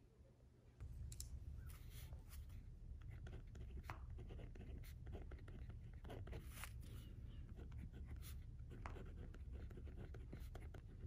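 Pen writing on lined spiral-notebook paper: soft, irregular scratching strokes of handwriting, starting about a second in, over a low steady hum.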